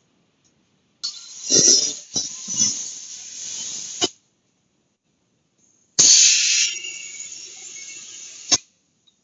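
Two bursts of compressed air hissing from an air line, each about three seconds long, starting abruptly and cut off with a click.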